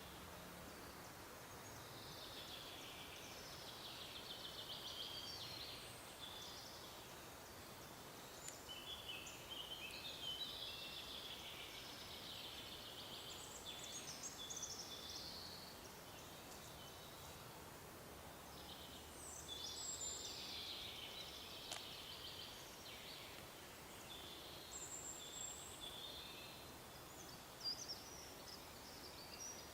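Songbirds singing in long, rapid twittering phrases, about four spells of song separated by quieter pauses, over a faint steady background of forest ambience.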